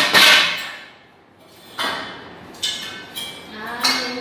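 Handling noise as a quilted sofa cushion pad is moved about: a loud rustling burst right at the start, then softer rustles and knocks about two and three seconds in. A person's voice is heard briefly near the end.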